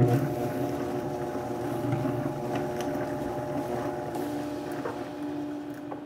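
Countertop blender switched on, its motor running at a steady high speed as it purees fresh cilantro chutney ingredients toward a paste.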